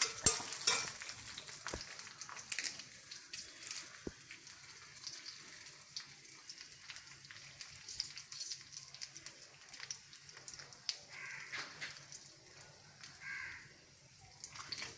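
Mustard seeds tempering in hot oil: a soft sizzle with scattered sharp crackles, the crackles thickest in the first few seconds.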